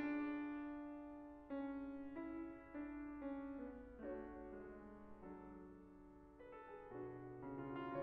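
Grand piano played softly in a slow melody of held notes, a new note struck about once a second, each fading as it rings. Lower bass notes come in near the end.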